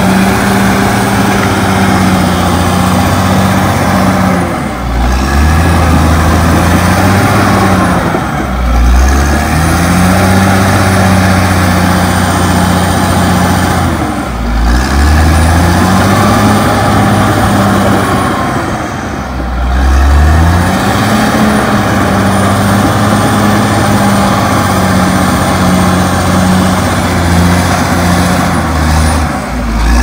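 Caterpillar D6R XL bulldozer's diesel engine running under load while pushing soil. Its note sags and picks back up about five times.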